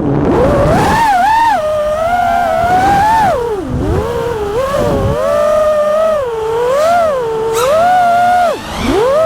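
FPV freestyle quadcopter's brushless motors whining, the pitch swooping up and down with the throttle and dropping sharply a few times as the throttle is chopped and punched again.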